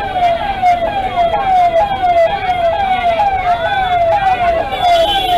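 Siren sounding in a fast repeating pattern, each tone sliding down in pitch about twice a second. Faint voices rise under it near the end.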